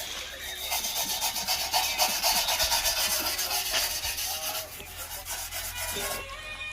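Rapid back-and-forth scrubbing strokes, a brush or abrasive rubbing on a part, loudest in the middle and easing off near the end.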